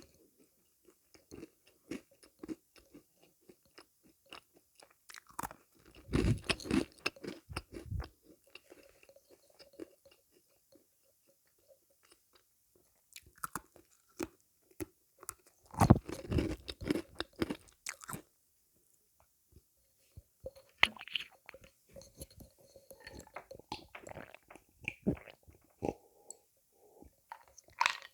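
A person biting into and chewing crunchy sweets close to the microphone. There are two loud bouts of crunching, about six and sixteen seconds in, with quieter crackly chewing and short pauses between.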